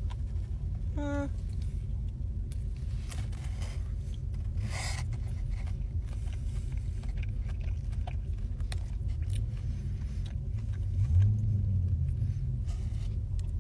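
Steady low rumble of a car heard from inside its cabin, with faint scattered clicks from chewing and handling the food. A short hum sounds about a second in, and a slightly louder low hum near the end.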